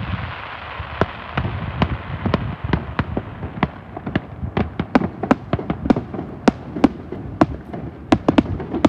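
Fireworks going off: an irregular string of sharp bangs and crackles over a low rumble of bursts, the bangs coming closer together and louder in the second half.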